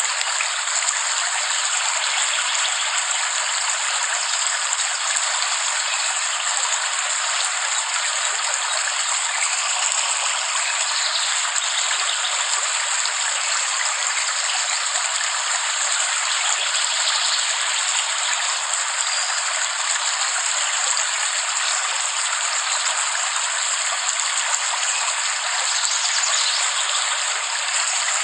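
Steady heavy rain, a dense even hiss of falling water with no thunder or breaks.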